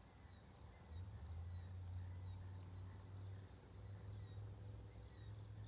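Crickets and other field insects chirring steadily, over a low steady hum that grows a little louder about a second in.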